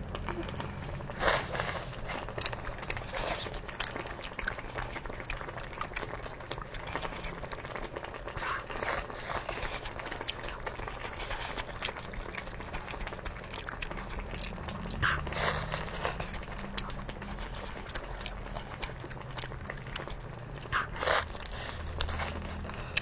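Close-up mouth sounds of eating lobster meat dipped in sauce: steady chewing with many small wet clicks and smacks. Louder bites come about a second in, around the middle-to-late part, and near the end.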